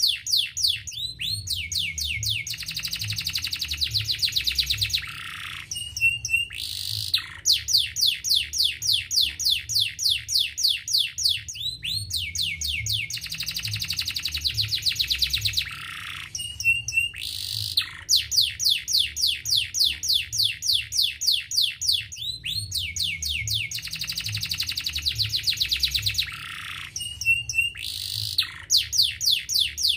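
A domestic canary singing continuously. Its phrases run as rapid rolls of quick repeated notes, then a dense fast trill, then a few short separate notes. The same sequence repeats about every eleven seconds.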